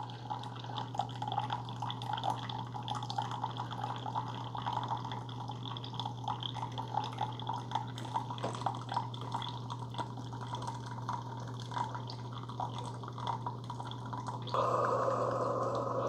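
Keurig K-Supreme Plus Smart single-serve coffee maker brewing, a thin stream of coffee trickling and dripping into a glass mug over a steady low hum from the machine; overall it runs quietly. Near the end a louder, steady rushing hiss starts as the brew finishes.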